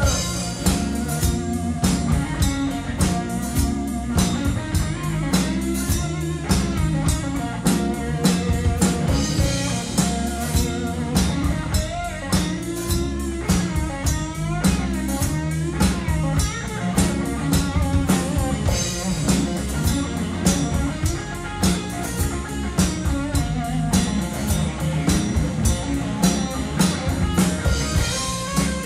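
Live rock band playing: electric guitar over bass guitar and a drum kit keeping a steady beat, with bent, wavering guitar notes about halfway through.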